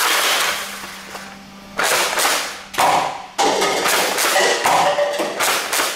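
Nerf Rival Phantom Corps Hades pump-action blaster being pumped and fired, firing original Nerf Rival foam balls: a string of sharp shots and plastic pump clacks, the first right at the start and the rest following quickly over the last few seconds.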